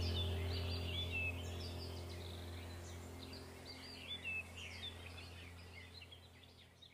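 Small birds chirping and twittering over a low, steady musical drone, with the whole sound fading out gradually.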